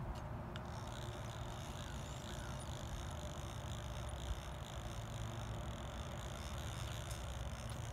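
Steady rush of flowing creek water, with a couple of faint clicks near the start.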